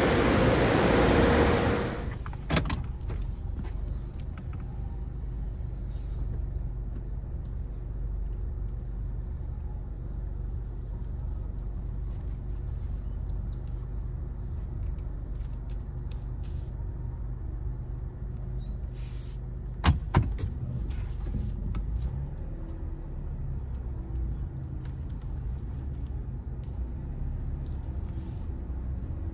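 Loud, even rushing of the car wash's air blowers cuts off about two seconds in. It gives way to a steady low rumble heard from inside a car in the wash tunnel, with scattered light clicks and two sharp knocks about twenty seconds in.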